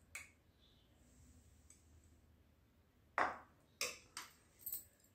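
A steel ladle clinking against a metal kadhai and a ceramic serving bowl as curry is ladled out. There is one light click at the start, then about three seconds in four sharp clinks with a short ring, roughly half a second apart.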